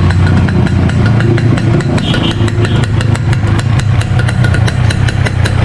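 Yamaha RX-King two-stroke single, bored out to 175 cc, idling steadily through a Boban 'ngorok' (snoring) aftermarket exhaust, a loud, even, low rumble.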